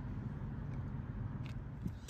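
Low steady background rumble with a couple of faint ticks in the second half.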